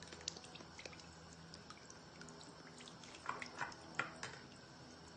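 Soy sauce pouring in a thin trickle from a bottle onto raw chicken pieces in a stainless steel bowl, faint, with a few small taps about three to four seconds in.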